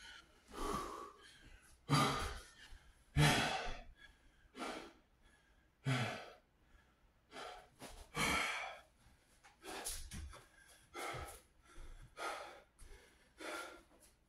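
A man breathing hard after a set of floor core exercises: heavy gasping breaths in and out, about one a second. The first few are the loudest and they ease off toward the end.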